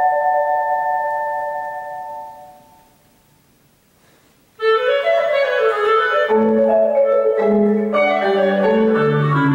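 Clarinet and marimba duet in concert. A held chord fades away into a pause of about two seconds. Then both instruments come in suddenly together with a fast, dense run of notes, joined soon after by lower held notes.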